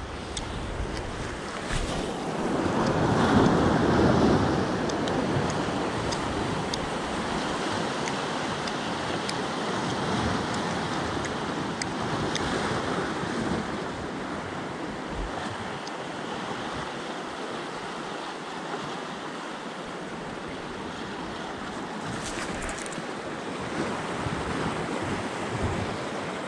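Ocean surf washing and breaking against shore rocks, with wind buffeting the microphone. The loudest wave surges about three seconds in, then the wash settles to a steady rush.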